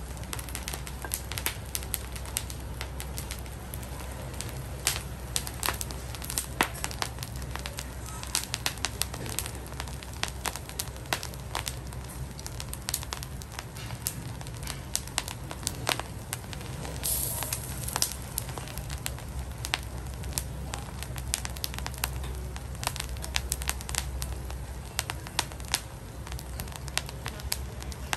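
Sea salt crackling and popping in a hot wok beneath scallops on the half shell: many irregular sharp pops over a steady low hum, with a brief hiss about two-thirds of the way through.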